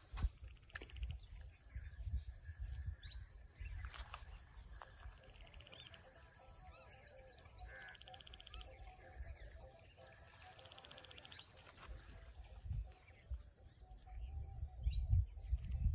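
Outdoor ambience: a steady high insect drone, with short spells of rapid trilling and a few bird chirps. Wind gusts rumble on the microphone, strongest near the end.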